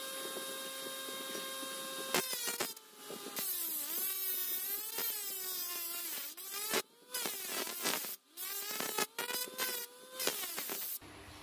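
Small DC motor spinning an abrasive sanding disc, its whine steady at first and then dipping and recovering in pitch again and again as a metal rod is pressed against the disc to grind a point on it, with a hiss of grinding. The sound cuts off briefly several times.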